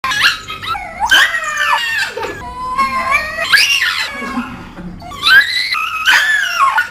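A dog howling and whining: several drawn-out, high calls that glide up and down in pitch.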